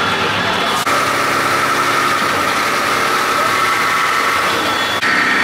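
Engine and road noise from inside a moving old bus, running steadily. The sound changes abruptly at a cut about a second in and again near the end.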